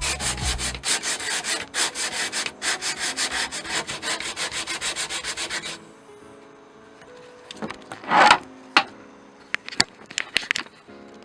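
Sandpaper rubbing on teak wood in quick, even back-and-forth strokes, about four a second, which stop about six seconds in. A single louder scrape comes about two seconds later, followed by a few sharp clicks.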